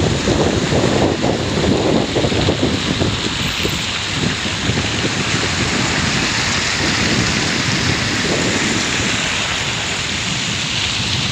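Strong wind buffeting the microphone over a dense, steady hiss of heavy rain. The low buffeting eases in the middle and picks up again near the end.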